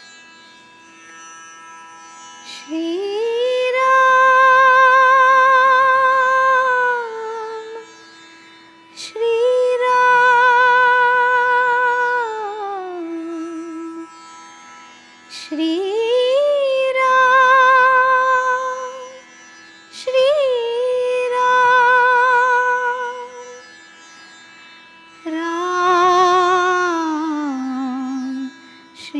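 Devotional music: a woman singing a Ram bhajan in five long, held phrases with vibrato, over a steady drone.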